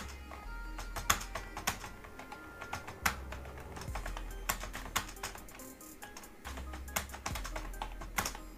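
Computer keyboard being typed on at a steady speed-test pace, irregular key clicks a few per second. Background music with low bass notes runs underneath.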